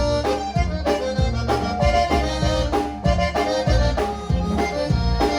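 Live conjunto band playing an instrumental break between sung verses, led by button accordion over a steady bass-and-drum beat.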